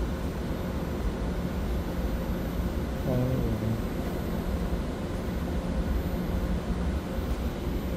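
Steady low rumble and hum of a Taiwan Railway EMU900 electric multiple unit at an underground station platform, with a short pitched sound about three seconds in.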